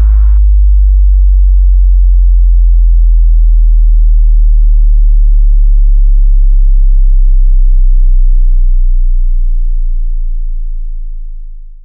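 A very deep, loud bass test tone held steady, a smooth hum of a few low notes sounding together, after the electronic bass music above it cuts off just after the start. It fades out over the last few seconds.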